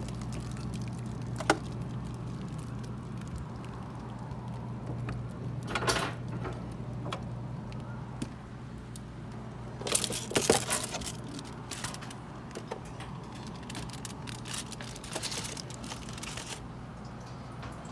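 Packages and plastic containers being handled in an open refrigerator freezer compartment: scattered clicks, knocks and rattles, the busiest about ten seconds in, over a steady low hum.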